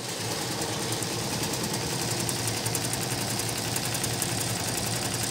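WINGS multi-needle computerized embroidery machine running and stitching, a fast, even clatter of needle strokes over a steady motor hum.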